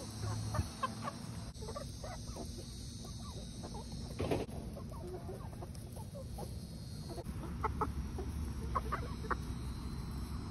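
Backyard hens clucking in short, scattered calls while they feed, with a run of louder clucks near the end.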